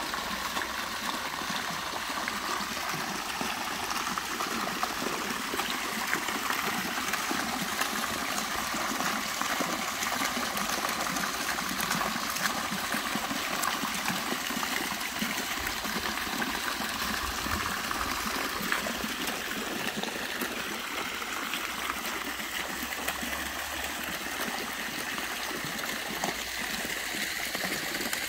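Small jets of a fountain falling into a shallow stone basin, a steady splashing and trickling of water.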